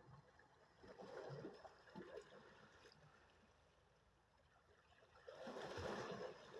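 Faint sea waves washing in, in two soft swells about four seconds apart, the second the louder, with a few low knocks of water.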